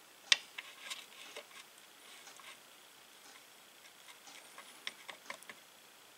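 Soldering a lead on a radio's printed circuit board: scattered faint clicks and small crackles from the iron and solder at the joint, with one sharper click about a third of a second in.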